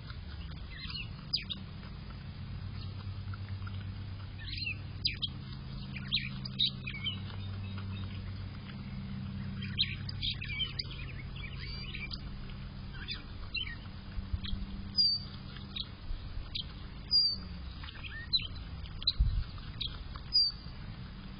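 Groundhog chewing a green vegetable, with short crunchy bites, while birds chirp now and then, over a steady low hum.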